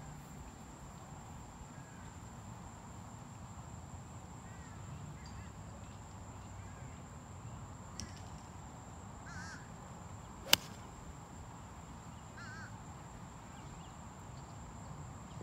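A golf iron striking the ball off the tee: one sharp, loud click about ten seconds in. Birds call now and then in the background.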